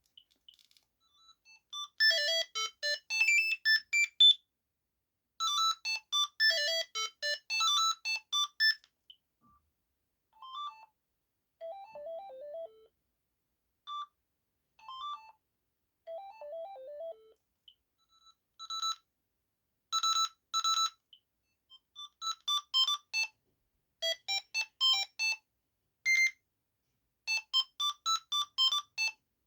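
Gigaset A120 cordless phone handset playing a string of short electronic ringtone melodies, one after another with brief gaps. Each is made of quick beeping notes. Some are high and bright, and a few in the middle are lower and softer.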